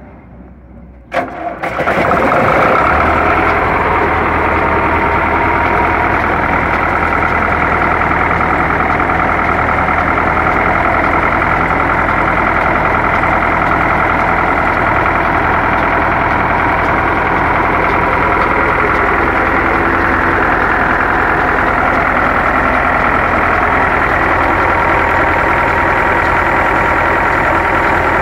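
Belarus tractor diesel engine, converted to electric self-start, fires up about a second in and settles into a steady run.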